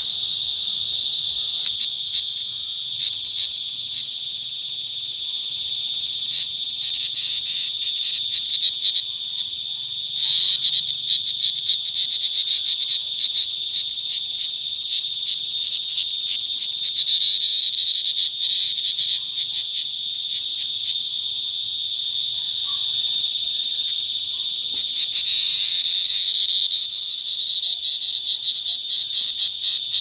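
Cicadas calling: a loud, steady high-pitched buzz, overlaid several times by bursts of rapid pulsing that swell and fade.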